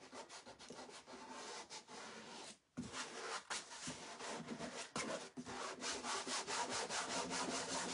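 Fingers rubbing a silkscreen transfer down onto a fabric-covered burlap board: a quick run of rubbing strokes, several a second, with a short break about two and a half seconds in. This is the transfer being pressed down firmly so that the chalk paste prints sharp.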